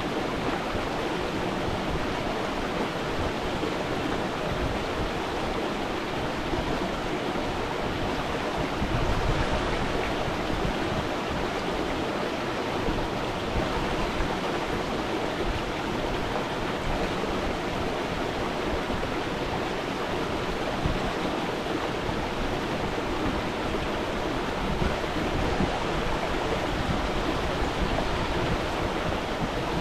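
Stream water flowing and splashing steadily, a continuous rushing without breaks.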